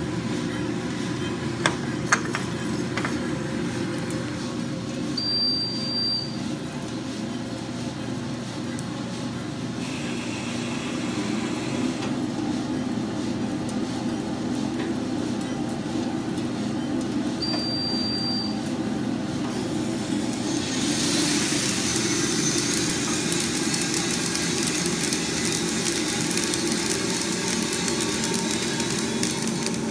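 Diedrich drum coffee roaster running, its motors and fan giving a steady hum, with two sharp clicks about two seconds in. About twenty seconds in, the roast is dropped: a loud rushing hiss of roasted coffee beans pouring from the drum into the stirred cooling tray starts and keeps going.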